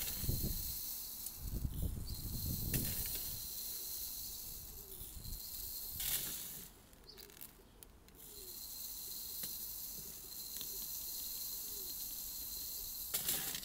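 Desiccant beads trickling through a small funnel into the hollow aluminium spacer bar of a double glazing unit: a steady gritty hiss, broken briefly about seven seconds in.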